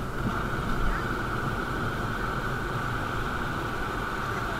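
Motorcycle running steadily while riding along a street, its engine and wind heard together as an even, unbroken noise on the bike-mounted microphone.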